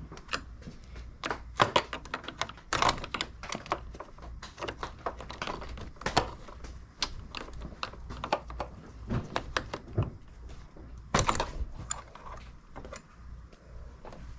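Irregular clicks and knocks of hand tools and metal parts being worked on a car, with a denser clatter about eleven seconds in, while a battery terminal is taken off to cut power to the car.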